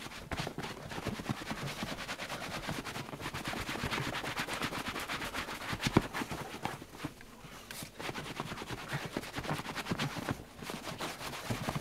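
Microfibre cloth rubbed back and forth over a leather bucket seat: a dense run of scrubbing and rustling, with one sharp knock about halfway through and a brief lull soon after.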